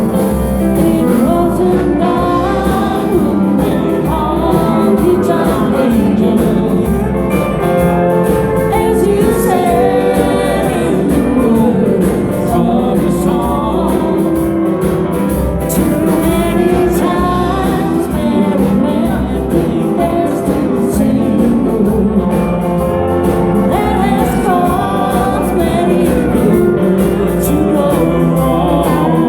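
Live country band playing a song, with singing over guitars and a steady beat.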